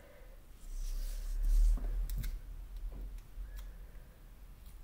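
Paper rustling and sliding on a desk as planner pages are moved and turned, loudest about a second and a half in. A few light clicks and taps follow as fingers handle a small paper sticker.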